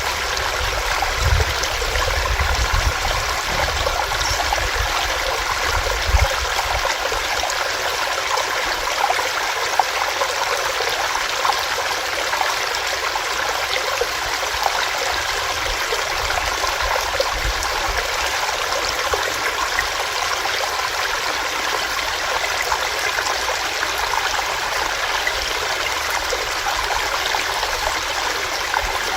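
A small rocky stream, water running steadily over rocks, with a continuous rushing, babbling sound and a few slightly louder splashes in the first ten seconds.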